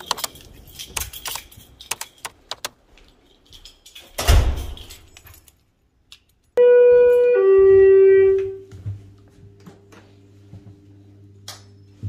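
Elevator arrival chime: two notes, high then low, the second ringing out and fading, over a faint steady hum. Before it come scattered light clicks and jangling, and one heavy thud about a third of the way in.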